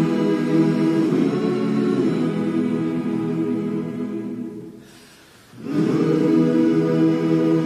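Background music of long held chords, fading out about four and a half seconds in and swelling back about a second later.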